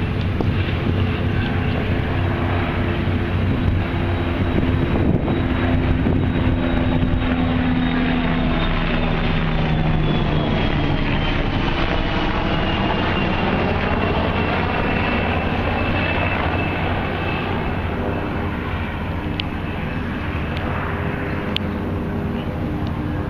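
A low-flying aircraft going past: a steady engine drone with a high whine that falls in pitch around the middle as it passes.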